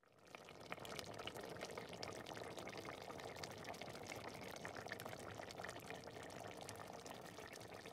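Pot of marqooq, dough sheets in a thick tomato and lamb broth, simmering: steady soft bubbling with many small pops.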